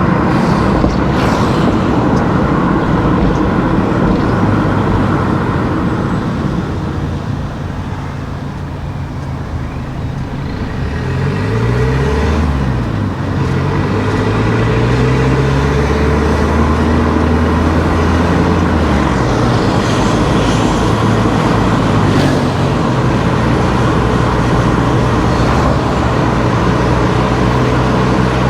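Car driving along a road: steady tyre and road noise with the engine running. About a third of the way in the sound drops a little, then the engine note falls and rises as the car slows and picks up speed again.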